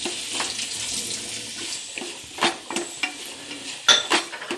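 Chopped vegetables sautéing in hot oil in a pan, with a steady sizzle while they are stirred. The spatula knocks against the pan several times.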